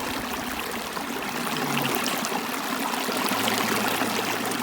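Water running steadily in a mountain stream, an even rushing and trickling.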